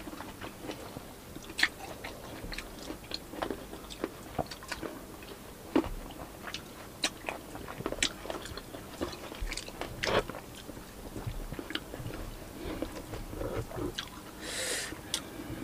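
Close-miked chewing and biting of fresh fruit, with scattered small wet mouth clicks and smacks.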